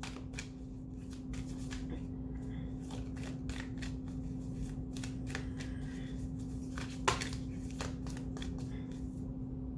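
A deck of oracle cards shuffled by hand: a string of quick, irregular soft card slaps and rustles, with one slightly louder knock about seven seconds in. A steady low hum runs underneath.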